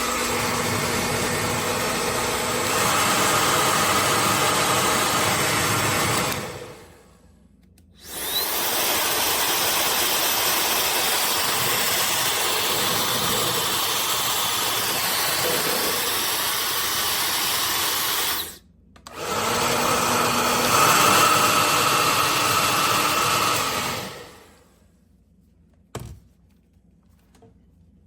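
OSOU high-speed hair dryer (110,000 RPM motor) running in three stretches, switched off briefly between them, with a steady rush of air and a faint high whine. In the first and last runs it steps up from low to high speed a couple of seconds after starting.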